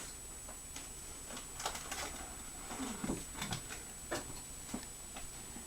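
Light, irregular clicks and taps of kittens moving about, with a few soft knocks about three seconds in.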